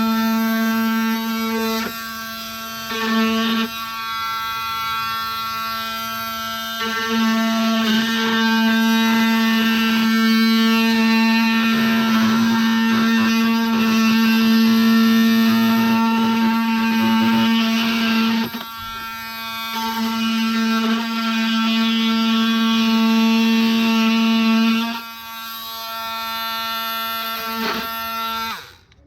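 A power tool buzzing at a steady pitch while cutting a notch into the door trim, with rougher cutting noise mixed in through the middle. It stops and starts again several times.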